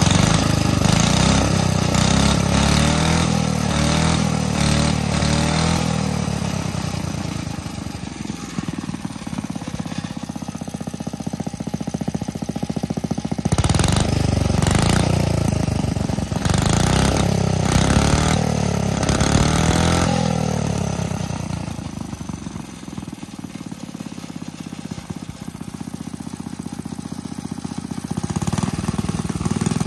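Rebuilt 1947 Clinton single-cylinder small engine running, its speed rising and falling as its carburetor is adjusted by hand. It runs faster and louder for a few seconds at the start and again in the middle, and drops back to a slower idle in between.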